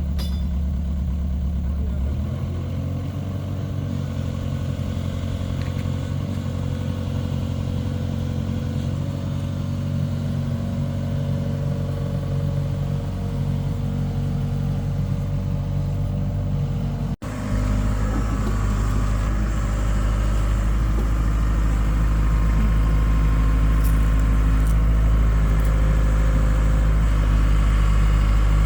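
An excavator's engine running steadily. Its note shifts about two seconds in, and about two-thirds of the way through the sound cuts abruptly to a louder, deeper engine hum.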